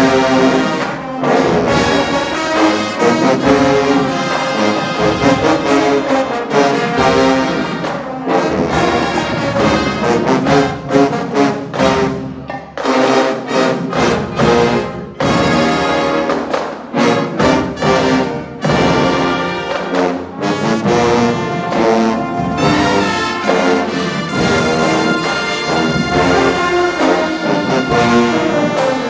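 Marching band playing loudly: a full brass section of trombones and trumpets carries the tune in sustained notes over steady drum hits.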